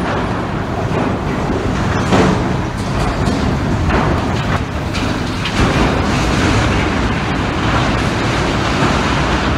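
A large passenger ferry's bow strikes and drags along a steel container gantry crane, a loud, continuous rumbling crash with several heavier impacts as the crane buckles and collapses.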